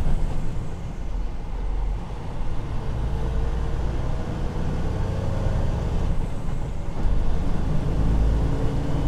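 Freightliner Cascadia semi-truck driving at speed: a steady low diesel engine drone with road noise, heard from inside the cab.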